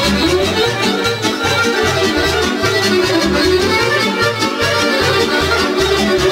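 Live band playing an instrumental Serbian folk tune, led by accordion over a steady pulsing bass beat.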